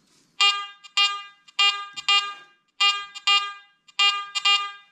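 Garrett AT Gold metal detector giving its target-tone beeps as a thin 8-karat gold ring is swept over the search coil. There are eight short beeps of one pitch, in four pairs, one pair for each pass of the ring.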